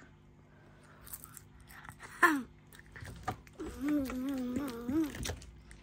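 A young child crunching chips and letting out a loud, sharply falling cry, then a wavering drawn-out 'ahh', reacting to the burn of spicy chips.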